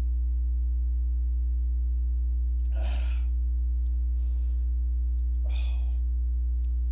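A man gasping and exhaling heavily after gulping down a beer: a loud breath about three seconds in, a fainter one shortly after, and another near six seconds. A steady low hum runs under it all and is the loudest sound.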